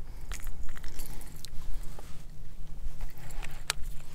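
A steady low rumble with scattered light clicks and taps.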